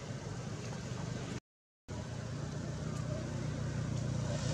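Steady low engine hum of a road vehicle, getting a little louder in the second half. The sound cuts out completely for about half a second around a second and a half in.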